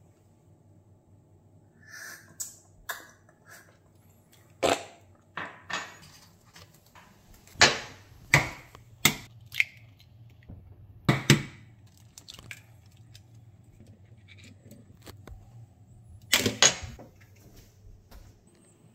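About a dozen sharp taps and clicks, spread unevenly: eggs being cracked and their shells pulled apart by hand over a stainless steel sink to separate the yolks.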